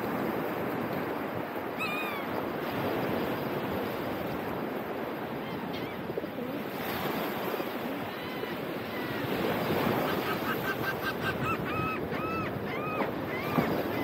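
Surf washing steadily onto the beach. A gull gives one call about two seconds in, and near the end gulls call in a quick run of short, arched cries.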